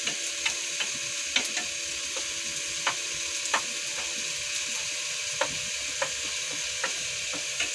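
Minced garlic sizzling in hot oil in a frying pan, stirred with a wooden spatula that knocks and scrapes against the pan now and then.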